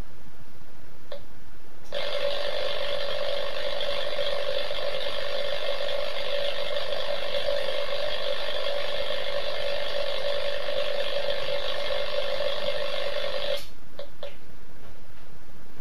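Steady electrical buzz from a home-built 45 kV X-ray set while its tube is powered, starting about two seconds in and cutting off suddenly near the end. A Geiger counter clicks a few times before and after the buzz.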